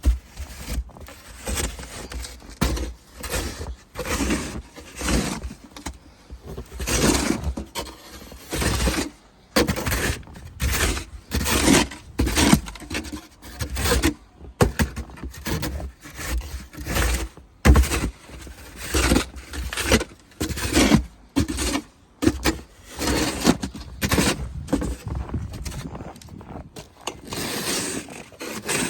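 Boots crunching and trudging through deep snow, about one step a second.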